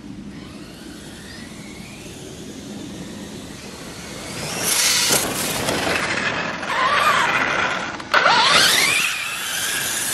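1/8-scale RC monster truck's electric motor whining and rising in pitch as it accelerates, with its tyres scrabbling over sand and gravel. It grows loud about halfway through and jumps suddenly louder about eight seconds in.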